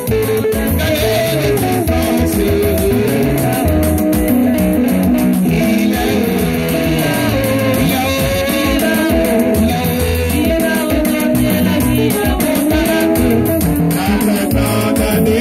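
Loud music with guitar and singing, playing without a break.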